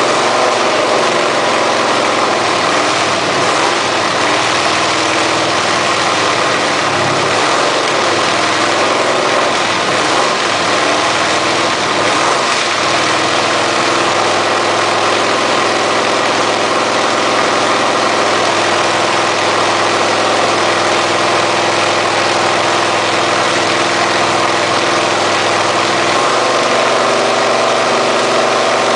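V8 engine idling steadily with an even, deep rumble.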